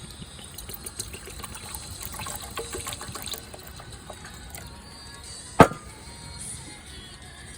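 Light clinks and clattering, with one loud sharp knock about five and a half seconds in, over background music.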